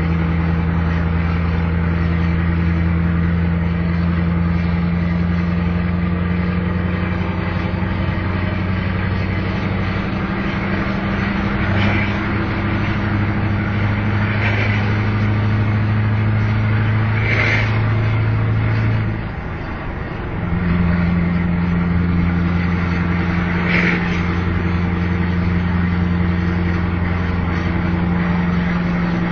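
Truck's V8 diesel engine pulling under heavy load, its revs creeping up steadily. About two-thirds through the note dips briefly and comes back at lower revs.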